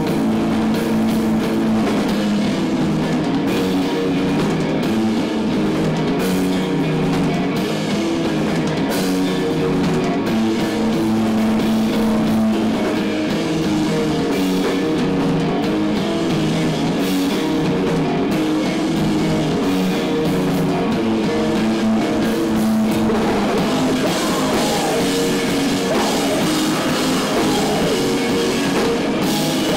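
A live rock band plays loud: electric guitar, bass guitar and drum kit. The playing gets busier and brighter in the last several seconds.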